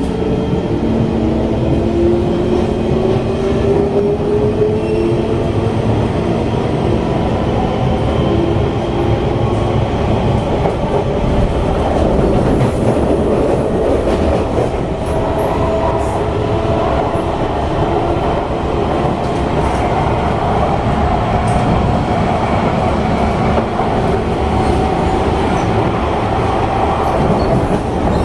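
C151 metro train heard from inside the car: the traction motors whine, rising in pitch as the train picks up speed, then run on at speed over a steady rumble of wheels on the rails.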